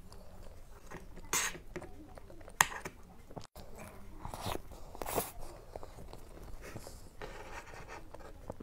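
Close-miked eating of a soft cream-topped dessert with a crumb topping: spoonfuls bitten and chewed with wet mouth sounds, broken by a few sharp clicks, the loudest about two and a half seconds in.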